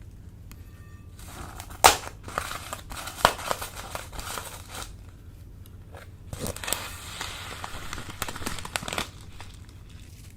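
Slime being squeezed and worked in plastic piping bags: two spells of crackling and crinkling a few seconds each, with sharp pops, the loudest about two seconds in.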